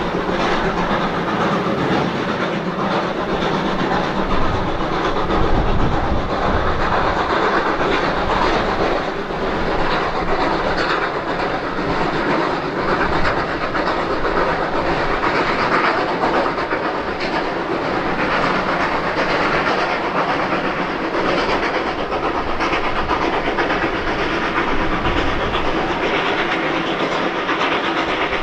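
Ex-Queensland Railways steam locomotive 218A and its carriages running along the line: a steady, continuous train noise with no break.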